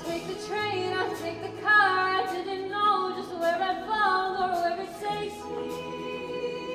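High school show choir singing over musical accompaniment, the voices holding and gliding between notes, with a steady low note beneath and regular sharp ticks throughout.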